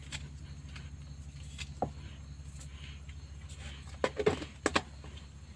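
Plastic cups and cooking things knocking and clicking as they are handled, once about two seconds in and several times near the end, over a steady low hum.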